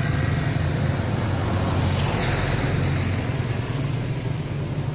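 A steady low engine drone, running evenly throughout.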